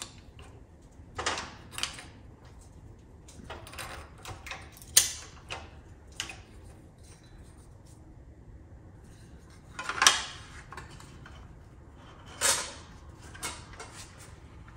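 Scattered metallic clacks and knocks from sheet-metal forming at a lever-operated shrinker-stretcher: the lever being worked and the formed metal piece being handled on the steel stand, the sharpest knocks about five and ten seconds in.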